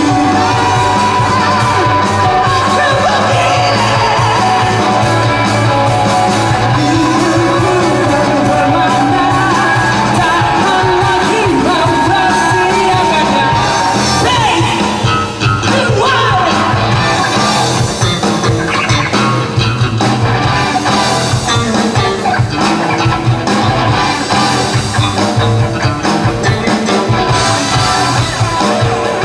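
Indie rock band playing live at full volume: electric guitars, bass and drums, with a singer's voice over the band in the first half. A little past halfway the sound briefly dips, then goes on with a more pronounced, pulsing drum beat.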